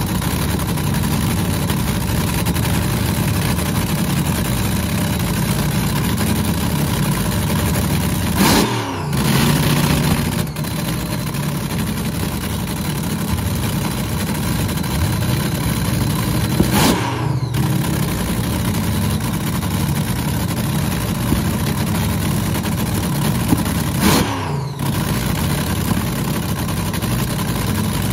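A dragster's Ford 427 SOHC "Cammer" V8 running at idle through open exhaust headers. It is blipped three times, about a third of the way in, a little past halfway and near the end, each rev climbing and then falling back to idle.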